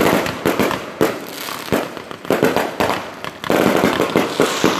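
Fireworks going off: a rapid, irregular series of sharp bangs with crackling between them.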